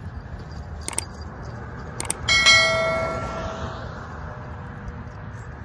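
A bell struck once a little over two seconds in, ringing for about a second and a half as it fades.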